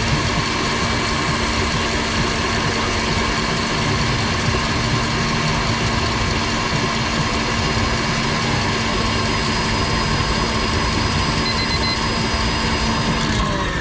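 KitchenAid stand mixer running at speed, its wire whisk beating a foamy white mixture in the stainless steel bowl: a steady motor whine over the whir of the whisk. The whine cuts off near the end as the mixer is switched off.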